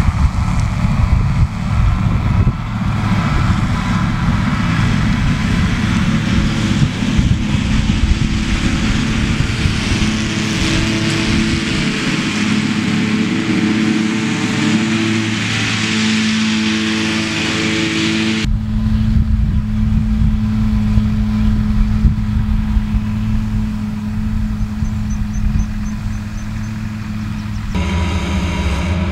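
Same tractor engine running steadily under field work, with the hiss and whir of the Krone hay machinery behind it. The sound changes abruptly about 18 seconds in and again near the end, where the Krone disc mower is heard cutting grass up close.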